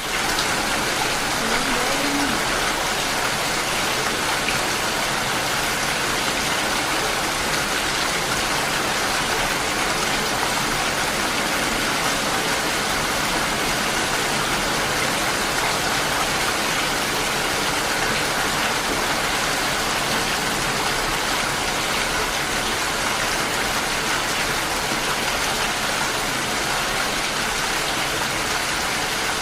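Steady rainfall: an even, constant hiss of rain.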